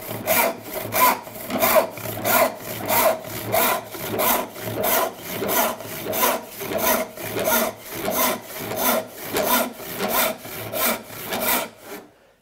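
Handsaw filed with rip teeth ripping along the grain of a board in a steady rhythm of about two strokes a second, down to a marked line, stopping near the end.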